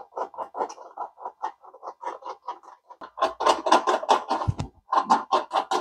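Hand screwdriver driving machine screws through a caster wheel's metal mounting plate into a thin stainless steel panel: a quick, uneven run of clicks and scrapes, about five or six a second, growing louder about three seconds in, with one dull knock late on.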